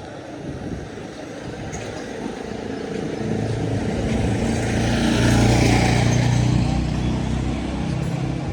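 A motor vehicle drives past close by. Its engine hum and tyre noise build up, are loudest about five and a half seconds in, then fade.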